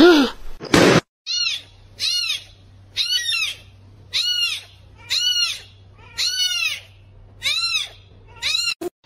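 A very young kitten mewing about eight times, roughly once a second. Each mew is a high, thin call that rises and then falls in pitch. A short loud sound comes in the first second, before the mewing starts.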